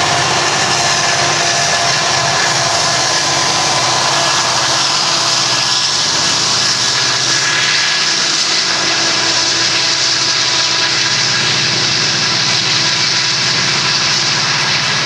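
Union Pacific diesel-electric freight locomotives pulling a train past under power, loud and steady, followed by freight cars rolling by with steel wheels on rail.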